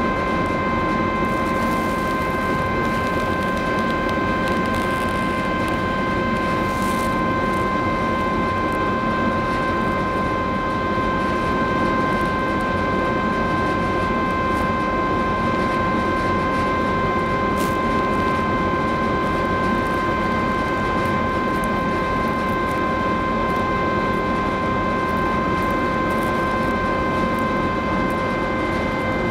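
The cruise ferry Silja Symphony's engines and machinery running steadily as she manoeuvres away from the quay: a constant drone with a steady whine over it.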